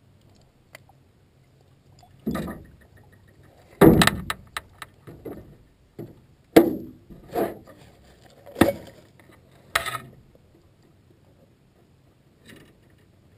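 Knocks, bumps and clanks in a small metal fishing boat while a fish is landed with a net: about a dozen separate thumps and rattles, the loudest about four seconds and six and a half seconds in.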